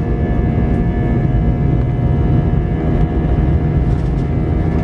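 Airbus A320's turbofan engines at takeoff thrust, heard inside the cabin during the takeoff roll: a steady engine whine over a loud rumble from the engines and the wheels on the runway. A few light knocks from the undercarriage come near the end.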